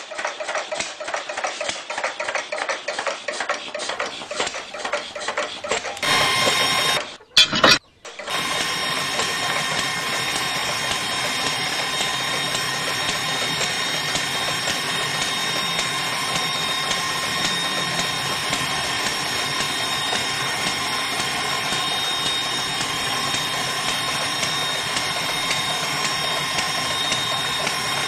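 Small DC hobby motor running steadily with a high whine, spinning the drill rod of a toy borewell drilling rig into wet sand. Before that comes a rapid rattle for about six seconds, and two sharp knocks about seven seconds in.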